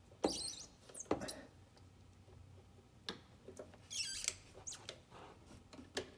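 Torque wrench with socket and extension being worked by hand while tightening toward a 25 newton-metre setting: scattered metallic clicks, ratchet ticks and scrapes, with a cluster about four seconds in.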